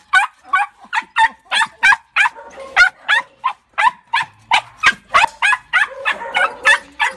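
Tibetan terrier yelping over and over, short high-pitched rising yelps at about three a second.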